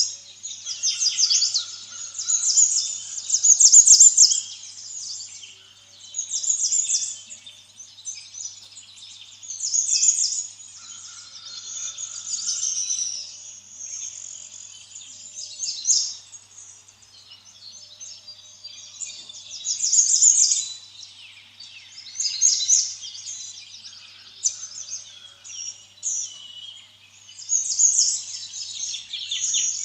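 Small birds chirping and twittering in high, quick phrases that come and go every few seconds.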